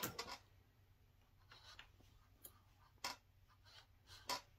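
Small plastic sewing clips snapping shut on layered fabric and batting, a handful of faint separate clicks with light fabric rustle between.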